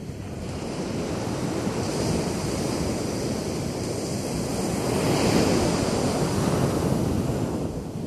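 Ocean surf on a beach: a wave builds, breaks loudest about five seconds in, and washes back out near the end.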